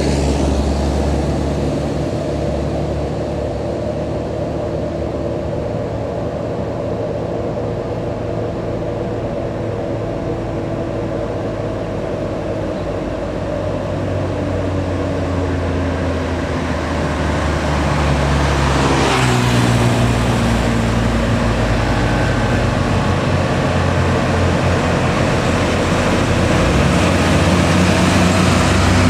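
Heavily loaded diesel trucks grinding up a steep climb, their engines roaring under load. One truck passes close about two-thirds of the way in, its engine note dropping, and the engine sound grows louder toward the end as the next comes up.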